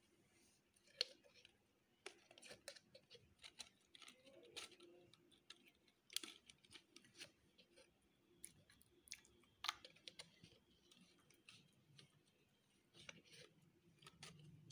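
Yellow and green slime being mixed by hand: faint, scattered sticky clicks and small pops, with a few sharper clicks standing out.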